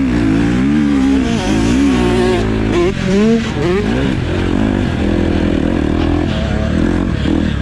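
Motocross bike engines revving up and down with the throttle through ruts and corners, with a quick climb in revs about three seconds in.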